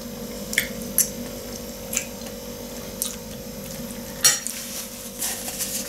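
Metal fork clinking and scraping on a plate while picking up glass noodles: a few sharp clicks, the loudest about four seconds in, over a steady low hum.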